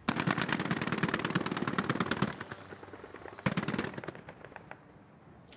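Automatic machine-gun fire: a long rapid burst of about two seconds, then a shorter burst about three and a half seconds in.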